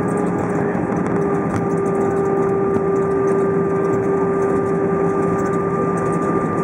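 Cabin noise of an Airbus A320 rolling out on the runway just after landing: a loud, steady roar of engines, airflow and wheels, with a steady hum running through it.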